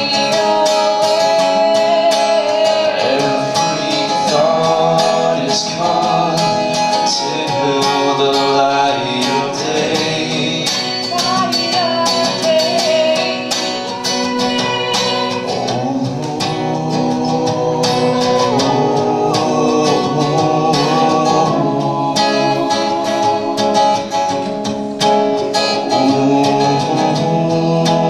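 Live song performance: a singer with strummed acoustic guitar accompaniment.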